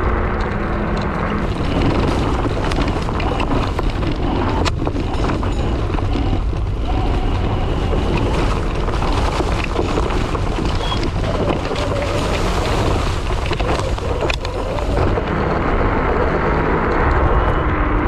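Wind buffeting the microphone, mixed with tyre and road noise from an electric scooter riding over paving stones and a dirt path. A few sharp knocks come from bumps, one about five seconds in and one near fourteen seconds.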